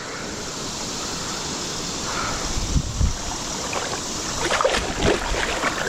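Steady rush of a high, flooded creek, with a run of short splashes about three-quarters of the way through.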